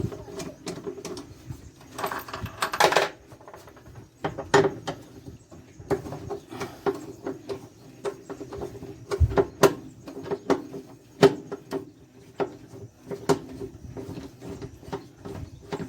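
Irregular metallic clicks and knocks of a 13 mm wrench working the bolts of a washing machine's motor, with a short rattle early on and one dull thud about halfway through. Under it runs the steady hum of another washing machine running under test.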